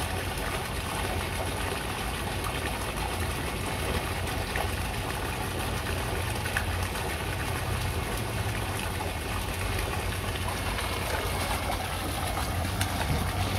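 Steady low mechanical hum with an even wash of noise over it, like a motor or pump running.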